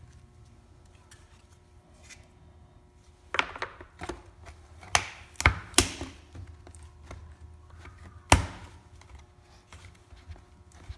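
Scattered sharp plastic clicks and knocks from cabin air filter housing parts and filters being handled and fitted: a cluster of knocks a few seconds in and one loudest knock about eight seconds in, with small taps between.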